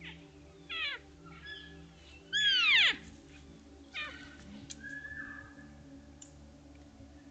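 Elk calling: high, whistling mews that fall steeply in pitch. There is one about a second in, a louder arched one around two and a half seconds, and a short one at four seconds, then a fainter level call near five seconds. A faint steady hum runs underneath.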